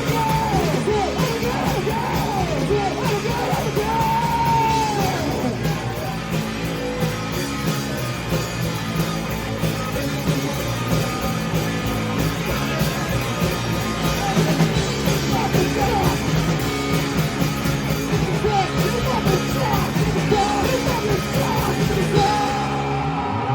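Rock band playing live, with a singer yelling the vocals over the full band.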